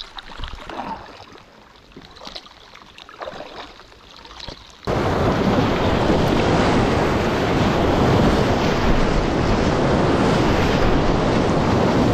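Paddle strokes and light splashing of a packraft on flowing river water, then about five seconds in a loud, steady rushing of whitewater cuts in suddenly as the raft runs a rapid, the torrent close to the microphone.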